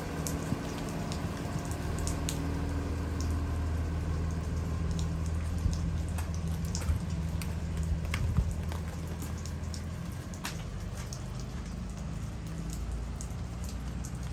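Steady rain falling, with scattered sharp drip ticks close by, over the low engine hum of a school bus pulling away that fades out about ten seconds in.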